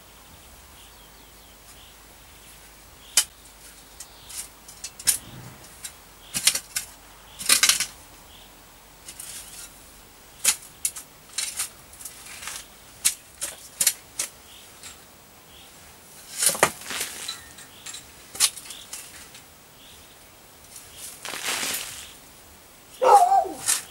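Turf being cut and lifted with a long-handled digging tool: irregular scrapes, crunches and short tearing rustles as the blade goes through grass and roots, some single sharp strokes and some longer half-second scrapes.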